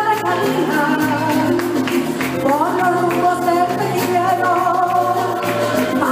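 Woman singing a Venezuelan llanero song from Barinas with a live band, her voice holding and sliding long notes over steady keyboard and string accompaniment.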